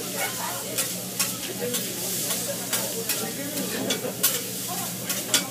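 Food sizzling on a teppanyaki griddle, with the chef's metal spatulas clicking and scraping against the hot steel plate, a sharp click every second or so.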